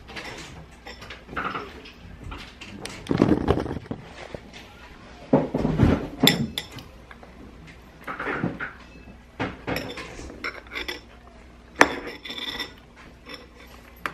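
Irregular clinks and clatter of dishes and cutlery, including a metal spoon knocking against a ceramic cereal bowl.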